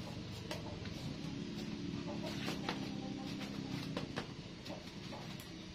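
Knife working a vegetable by hand: scattered small sharp clicks and scrapes as it is peeled and cut, over a steady low background rumble.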